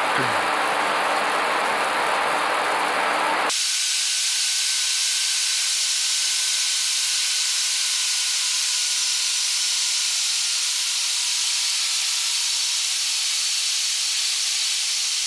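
A steady hiss of noise in the airliner cockpit audio. About three and a half seconds in it abruptly turns thinner and higher, with two faint steady tones underneath.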